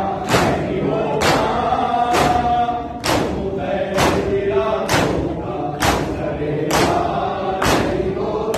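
Shia matam (sine-zani): a crowd of men chanting a noha together while striking their bare chests in unison, one sharp slap about every second.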